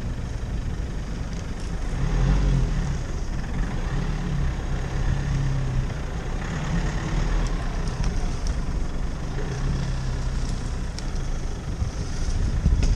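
A 4x4 vehicle running, a low engine and road rumble.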